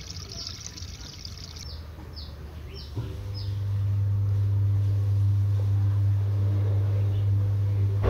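Drain water from a Samsung WA80H4000 top-loading washing machine pouring out of its corrugated drain hose into a floor drain. About three seconds in, after a click, the washer's motor starts a steady hum that builds for a second and then holds, as the drum spins for the spin-dry stage.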